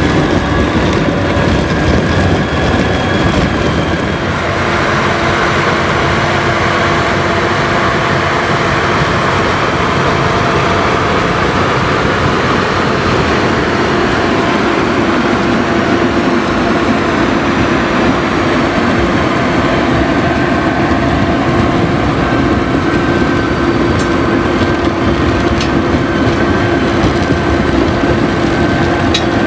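Caterpillar Challenger MT765D rubber-tracked tractor working under load: its diesel engine runs steadily while its tracks and the 4 m Farmtec rotary spading plough churning the soil behind it add a dense, even noise.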